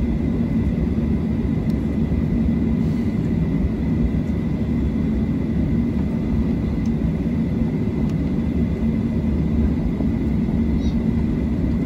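Cabin noise of a Boeing 737-700 taxiing, its CFM56-7B turbofans giving a steady low rumble with a faint steady high whine.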